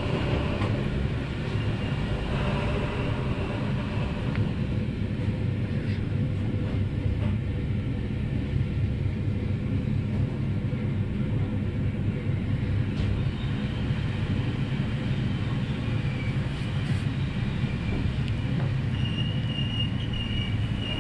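Steady low rumble of a passenger train rolling in to arrive at a station, heard from inside the carriage. A thin high squeal comes in near the end.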